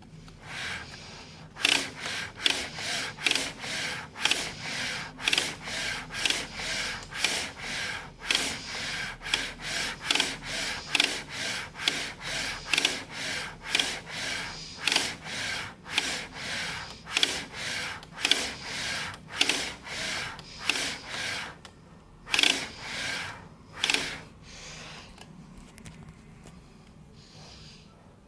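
Epson 4880 large-format printer's carriage moving back and forth in quick repeated strokes, nearly two a second, for about twenty seconds, then a few more before it stops. It comes with a knock from the carriage belt tensioner mechanism, the fault being shown.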